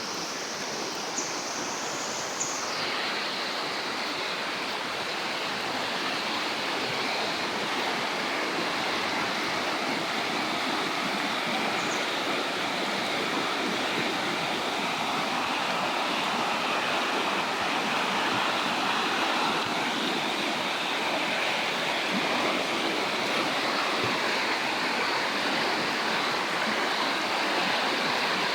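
Water rushing in a canyon stream: a steady full rush that slowly grows louder. A high thin buzz runs over it for the first few seconds and stops about three seconds in.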